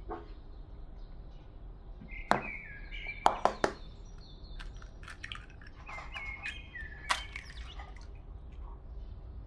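Glass bowl set down on a wooden table and eggs knocked against it to crack them: a sharp knock, then a quick run of three taps, and another knock near the end. Birds chirp in the background.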